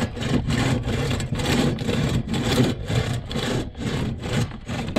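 Buck saw cutting through a dead wooden pole in quick, even back-and-forth strokes, roughly three or four a second, as the butt end is squared off.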